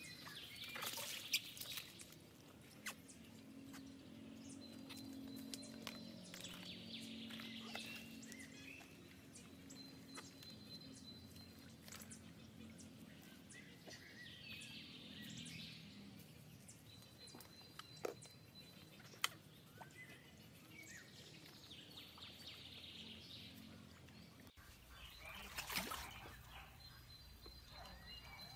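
Faint pond-side ambience: small splashes and drips of water as a banana-trunk raft is handled in the pond, with birds calling at intervals. A few sharp clicks stand out.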